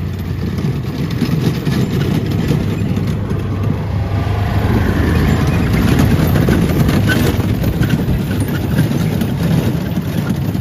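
Engine of a small utility vehicle towing a train of barrel carts, with the carts' wheels rolling over wood chips. It swells a little as the carts pass close, about halfway through.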